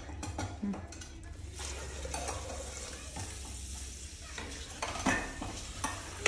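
Dried pizza seasoning shaken from a small glass jar onto chopped vegetables in a plastic bowl: a few light taps and rustles over a steady hiss and low hum.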